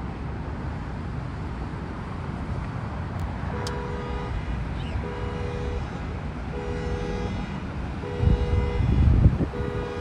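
A car horn sounding in an even repeating pattern, as a car alarm does: toots of nearly a second, one about every second and a half, starting a few seconds in over a steady low background rumble. Near the end, heavy low rumbling buffets on the microphone are the loudest sound.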